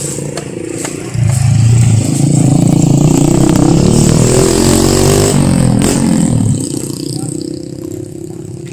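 A motorcycle passing close by. Its engine comes up suddenly about a second in, drops in pitch as it goes past, and fades out.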